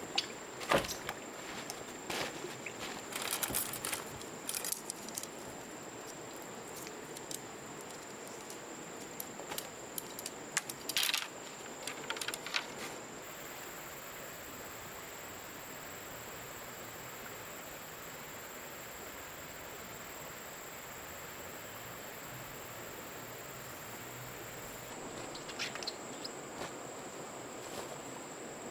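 Insects droning in one steady high tone, with a second, higher insect chorus joining for about ten seconds midway. Scattered clicks and knocks sound through the first half.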